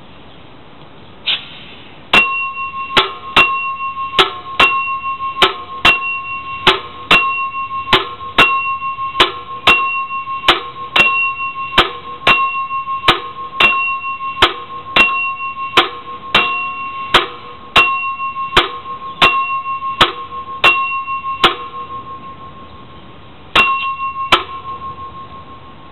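Bell of a vintage Eco Tireflator Model 98 air meter dinging while it fills a truck tyre, one bright ringing strike about every two-thirds of a second for some twenty seconds. It pauses, then dings twice more near the end; each ding marks a shot of air metered into the tyre.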